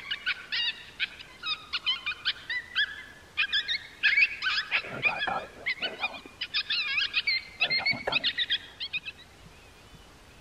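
Coyote yipping and howling: a dense chorus of rapid high yips and short wavering howls, several overlapping at once, stopping abruptly about nine seconds in.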